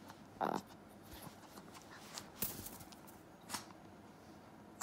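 Long-haired Chihuahua chewing and mouthing a plush toy: a short throaty sound about half a second in, then scattered soft clicks and rustles. A sharp click near the end is the loudest sound.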